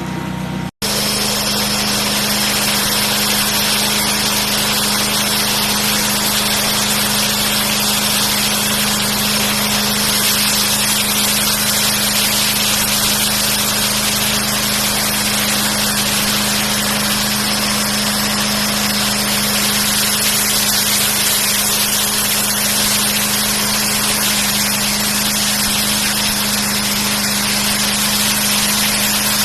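Pressure washer running steadily: a motor's steady hum under the hiss of the high-pressure water spray, after a brief cut just under a second in.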